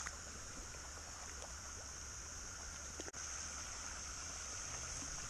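Faint, steady chorus of night insects in a rice paddy: an even high-pitched drone with a weaker, lower one beneath it, briefly breaking off about three seconds in.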